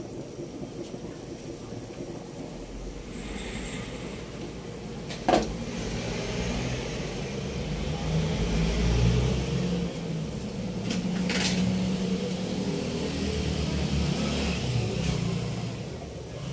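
A pot of pork broth at a rolling boil, bubbling, under a low rumble that swells a couple of seconds in and fades near the end. A sharp click comes about five seconds in, and a few lighter clicks come later.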